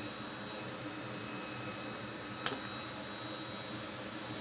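Steady fan-like hiss with a faint high steady whine, broken by a single short click about two and a half seconds in.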